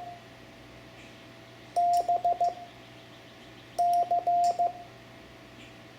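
Morse code (CW) tone of about 700 Hz keyed as two letters, B (dah-dit-dit-dit) about two seconds in and C (dah-dit-dah-dit) about four seconds in, each element starting with a faint click.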